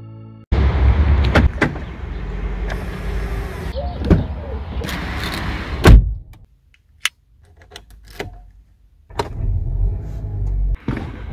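Handling sounds inside a parked Volkswagen car: a string of sharp clicks and knocks around the driver's door controls and power-window switch, with a quiet spell partway through.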